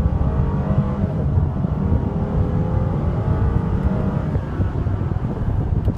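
Mercedes-Benz SL550's turbocharged V8 accelerating hard, heard from inside the cabin, its note climbing in pitch as the car runs up to about 60–70 mph.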